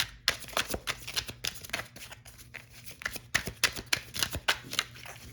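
A deck of tarot cards being shuffled by hand: a quick, irregular run of card snaps and flicks.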